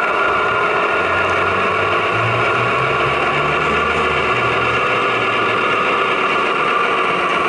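Sound-equipped HO scale GE AC6000CW model locomotives playing sixteen-cylinder turbo diesel engine sound through their small speakers, running steadily. A low engine tone comes in about a second in and climbs in steps before dropping away after about five seconds.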